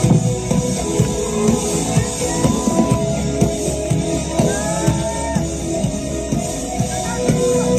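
Live rock band playing: drum kit keeping a steady beat under electric guitar and keyboard, with a singing voice.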